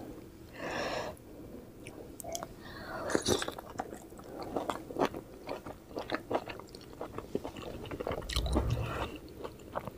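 Close-miked mouth sounds of a person eating steamed vegetable momos: a bite, then chewing with many short clicks and lip smacks.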